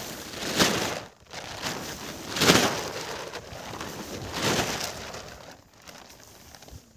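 Tent fabric flapping and rustling as it is shaken out in strong wind, in three loud rushes about two seconds apart, then quieter rustling.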